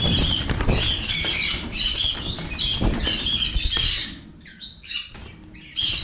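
Cockatiels squawking and flapping their wings in a wire aviary. The birds are agitated and restless, and the calls and flapping ease off about four seconds in.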